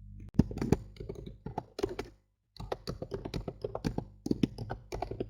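Typing on a computer keyboard: a quick, irregular run of keystrokes that pauses briefly about two seconds in, over a low steady hum.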